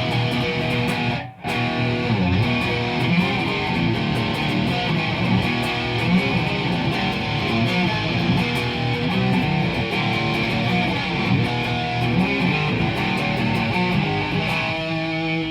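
Instrumental passage of a punk rock song: strummed guitars playing steadily. The music drops out briefly about a second in, and a chord is held near the end.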